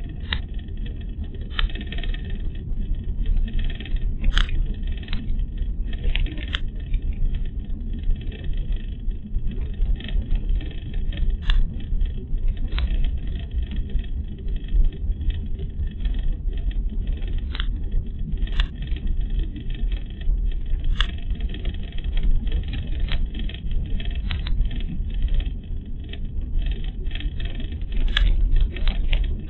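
Car driving on a paved road, heard from inside the cabin: a steady low rumble of tyres and engine, with light clicks and rattles every second or two.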